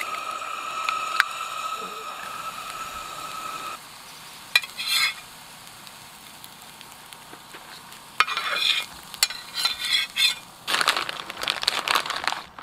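Eggs sizzling in a hot oiled frying pan on a camp stove for the first few seconds. Then a metal spatula scrapes and taps against the pan in several short runs, scooping scrambled eggs out onto tortillas.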